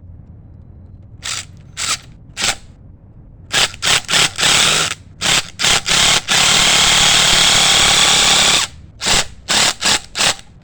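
Impact driver driving a hex-head Tapcon concrete screw. It runs in short trigger pulls, then one continuous run of about two and a half seconds, then a few more short pulls to seat it. The hole had stripped and is packed with bent wire so the screw will grip.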